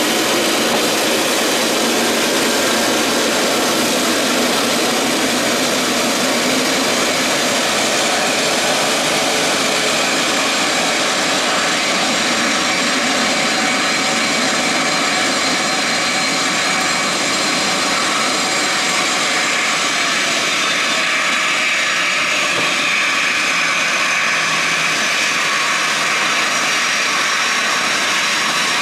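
Boeing 777-300ER's twin GE90 turbofan engines running at taxi power as the airliner taxis and turns onto the runway. It is a steady, loud jet roar with a high whine that grows stronger in the second half.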